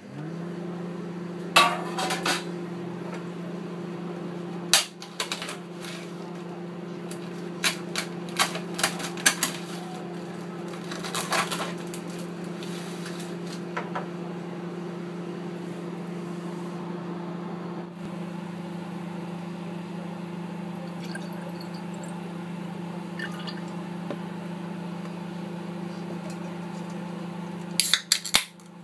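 Microwave oven running with a steady hum that spins up as it starts. Scattered clicks and knocks of things being handled on the worktop sound over it, with a quick cluster of clicks near the end.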